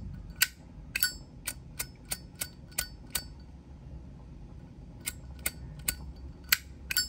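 Brass Zippo lighter lid being flipped open and snapped shut over and over: sharp metallic clacks, each with a brief high ring. There are about nine in the first three seconds, a pause, then six more near the end.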